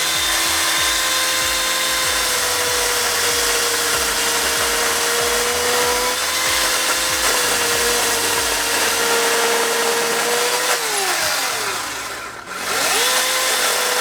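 Ryobi 18V cordless battery chainsaw's electric motor and chain running with a steady high whine while cutting through a three-inch log. About eleven seconds in the whine falls away as the trigger is released, and after a brief pause it spins back up.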